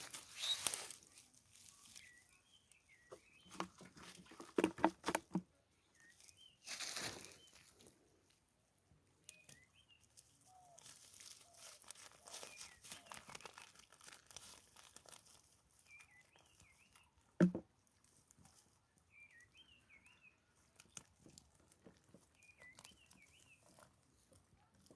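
Irregular splashing and rustling, loudest in the first few seconds, with one sharp knock about two-thirds of the way through. Through it a bird repeats a short warbling chirp every few seconds.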